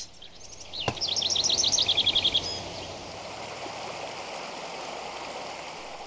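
A songbird sings a quick run of about a dozen high chirping notes that fall and settle in pitch, just after a single click. Under and after it, a stream runs with a steady, even rush.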